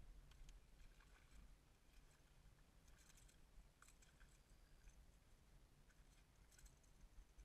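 Near silence: a faint low rumble with a few soft, scattered clicks.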